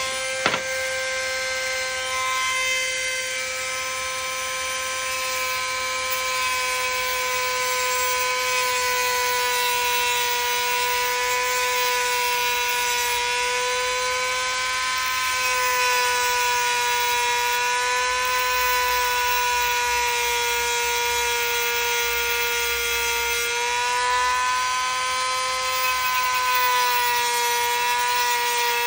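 Dremel rotary tool running steadily at high speed with a high whine, its cutting wheel sawing through a metal rod of a wire plant stand. There is a sharp click about half a second in, and the whine sags briefly in pitch near the end as the wheel is pressed harder into the metal.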